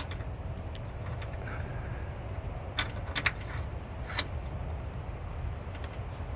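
A few light metallic clicks and clinks, clustered about halfway through, as a steel crankshaft timing sprocket is worked onto the crankshaft snout of a Ford 5.4L 3V V8. A steady low rumble runs underneath.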